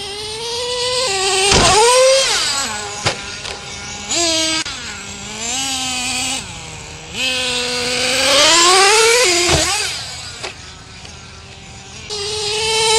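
Nitro RC truck's small glow-fuel two-stroke engine revving as it drives, its pitch climbing and falling away in several surges, broken by a couple of sudden sharp cuts.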